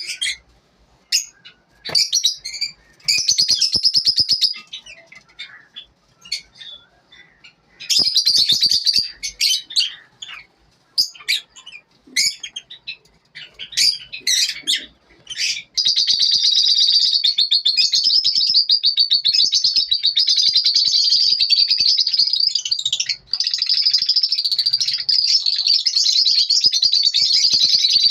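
Lovebirds chirping: scattered bursts of high, rapid chirps with short gaps, then from about halfway on a continuous fast, high-pitched chatter, broken only once briefly.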